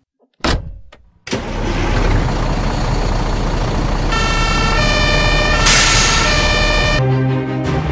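Fire engine two-tone siren blaring over a loud rushing rumble, the tones stepping back and forth between pitches from about four seconds in. A short hit comes before it, and music begins near the end.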